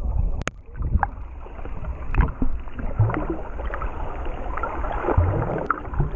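Muffled water sloshing and bubbling heard through a camera held underwater in its waterproof housing, with a low rumble and scattered sharp clicks and knocks.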